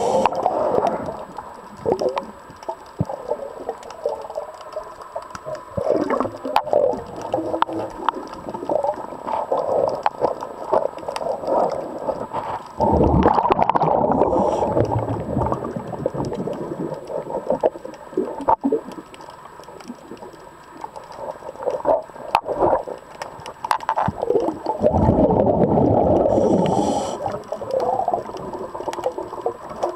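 Muffled underwater sound from a camera moving along a boat hull, with scattered small clicks and knocks. Two longer surges of bubbling gurgle come near the middle and near the end.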